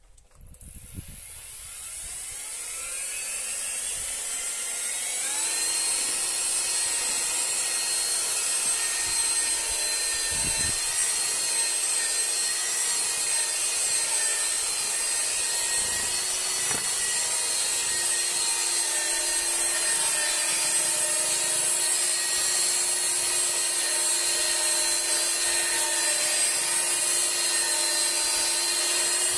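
Handheld electric paddle mixer stirring backing plaster in a plastic bucket. Its motor whine climbs in pitch over the first five seconds or so as it spins up, then runs steadily.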